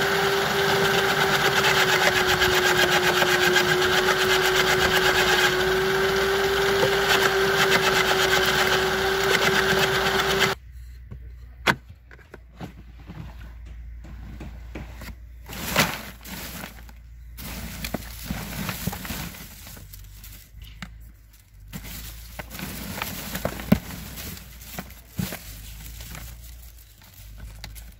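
Electric garden branch shredder running with a steady whine while a branch is fed in; it stops abruptly about ten seconds in. After that come quieter rustling and scattered knocks from handling the collection bin of chipped twigs.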